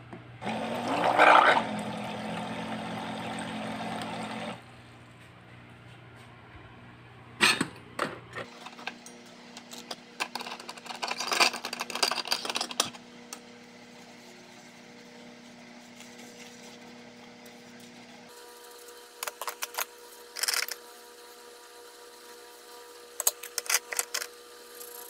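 Small electric water-jug dispenser pump whirring for about four seconds as it runs water into a sink, its motor rising in pitch as it starts. Then small stainless dishes clink and are scrubbed with a sponge, with a few sharp clicks.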